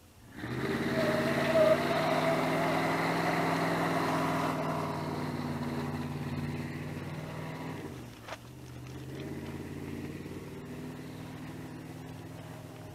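A motor vehicle's engine comes in suddenly about half a second in and runs steadily, slowly getting quieter. It dips briefly around eight seconds in, with a sharp click.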